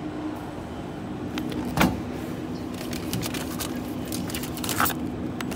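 A spiral-coil snack vending machine's steady low hum, with a sharp knock about two seconds in and then a run of light rattling clicks that ends in a second knock near the end, from the machine's push-flap delivery door being handled.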